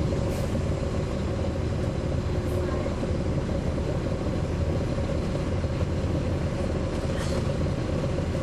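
Caterpillar C13 ACERT diesel engine of a 2009 NABI 416.15 transit bus heard from on board, running steadily with its radiator fan on. A few brief high hisses come through: just after the start, about two and a half seconds in, and near the end.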